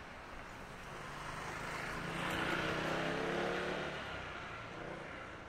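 A motor vehicle drives past close by: its engine and tyre noise swell to a peak about halfway through, then fade away.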